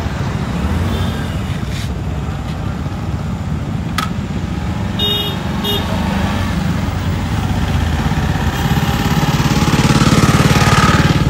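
Motorcycle engine running as the bike rides up and pulls over, with road traffic going by. Two short horn toots about five seconds in.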